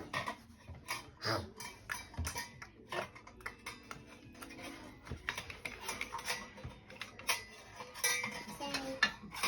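Kitchen utensils clinking and knocking against dishes and a bowl: irregular clatter of small hard knocks, several a second.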